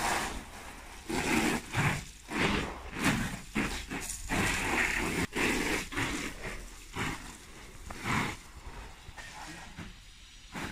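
Water spraying in irregular spurts from a garden hose and spattering into an empty vinyl above-ground pool.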